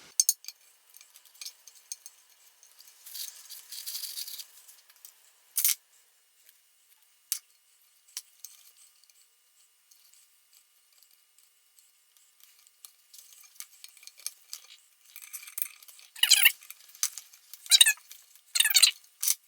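Small clicks and taps of metal parts being handled while a Shopsmith Jigsaw 610's shaft assembly is put back together. Near the end come three short, wavering squeaks, each about half a second long.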